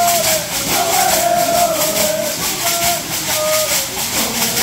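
Stomp dance: the leg shakers (shell shakers) worn by the women dancers rattle in a steady rhythm with each step, while men's voices sing the dance song in held, wavering notes.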